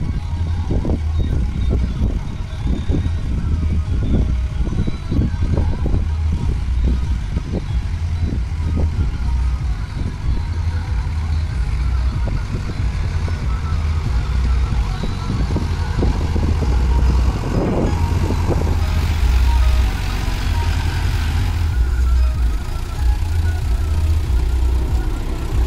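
Sonalika WT 60 tractor engine running under load as it pulls a land leveller through loose soil, with a heavy, uneven low rumble.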